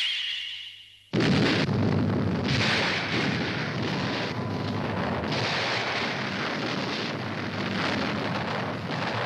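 Cartoon sound effect of a time bomb going off as its countdown reaches zero: a bright ringing tone fades out, then about a second in a huge explosion breaks out and carries on as continuous rumbling blasts that swell in waves.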